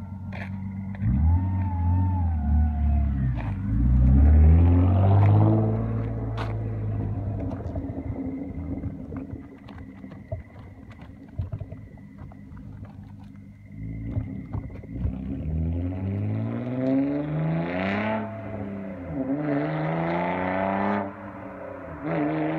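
Nissan Altima SE-R's VQ-series V6 with the muffler deleted, accelerating hard away. The pitch rises through the gears, loudest about four seconds in, then eases off. From about fourteen seconds in there is a second hard pull, rising again through several gear changes and fainter as it gets further off.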